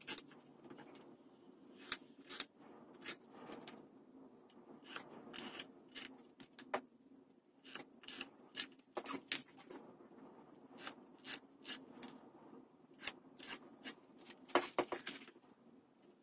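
A hand tool scraping across vegetable-tanned leather along a steel rule, in many short, quick, irregular strokes with a few louder ones near the end. A faint steady low hum sits underneath.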